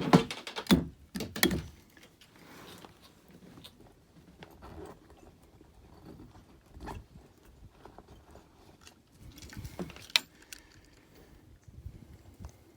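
Gear being handled: scattered knocks, clicks and rattles as the scale is reached for, loudest in the first second and a half, then quiet fumbling with a sharp click about ten seconds in.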